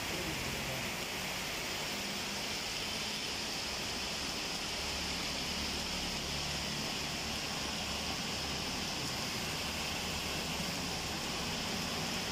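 Heavy rain pouring down and floodwater rushing along a street, a steady hiss of water with no let-up.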